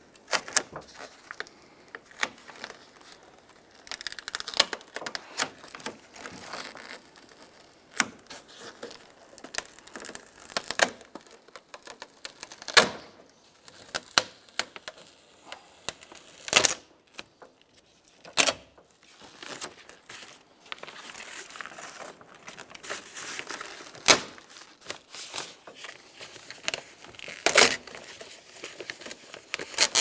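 Plastic door vapor barrier being peeled off the steel inner door panel: crinkling of the sheet and sticky tearing as it pulls free of its adhesive, on and off, with sharp snaps every few seconds.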